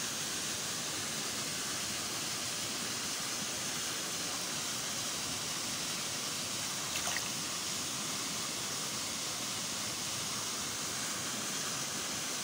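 Steady rushing hiss of flowing water, even throughout, with one brief click about seven seconds in.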